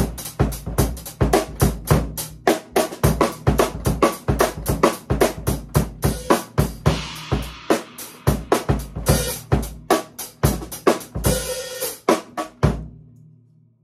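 Premier acoustic drum kit played in a busy beat of bass drum, snare and cymbals, several hits a second. The playing thins out and stops near the end.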